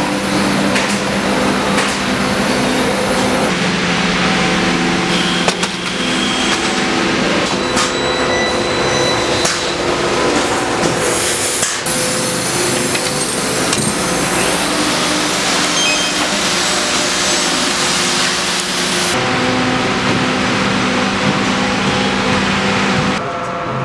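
Background music track: sustained chords that change every few seconds over a steady noisy wash.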